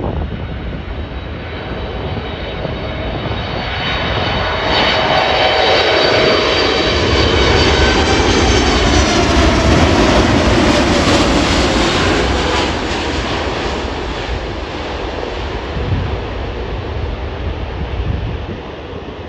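Jet airliner passing close by, its engine noise building to a peak about halfway through. The engine whine then drops in pitch as it passes and fades away.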